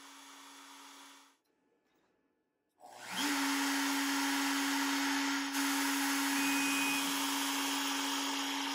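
Router spindle on a Onefinity CNC running with a steady hum and a loud airy hiss as its 1/16-inch tapered ball nose bit carves into a cedar board. It drops out for about a second and a half, then comes back loud about three seconds in with a short rising whine as the spindle spins up, and runs steadily after that.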